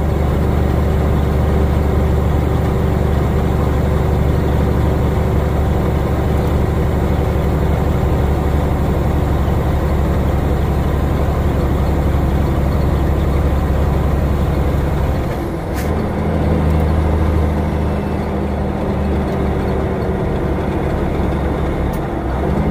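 Loaded log truck's diesel engine and road noise heard from inside the cab while driving, a steady low drone. About two-thirds of the way through there is a click, and the engine note dips briefly, then carries on at a different pitch.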